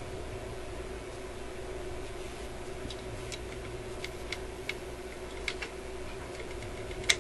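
Small scattered clicks of a screwdriver turning a little screw in a record player's plastic tone arm, with one sharper click near the end. The screw is turning without drawing the mount tight. A steady low hum runs underneath.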